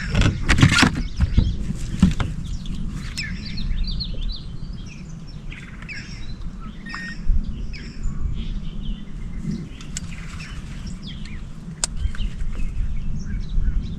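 Birds chirping, with many short, varied calls, over a steady low rumble. There are a few sharp knocks in the first second.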